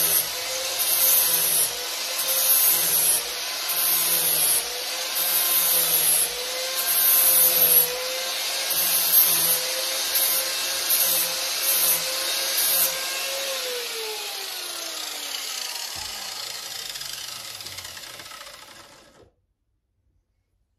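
Corded angle grinder with an abrasive disc running and sanding down a wooden axe handle held in a vise, the grinding noise rising and falling as the disc is worked against the wood in short strokes. About two-thirds of the way through the grinder is switched off and its whine falls steadily in pitch as the motor winds down to a stop.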